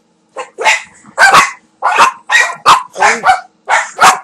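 Small dog barking loudly in a rapid run of about ten sharp barks, two or three a second, starting just under half a second in. It is excited alert barking, set off by its owner asking "who's there?"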